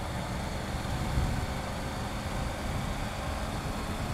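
Triumph Tiger 900 GT Pro's three-cylinder engine running steadily under way, with wind rushing over the helmet-mounted microphone.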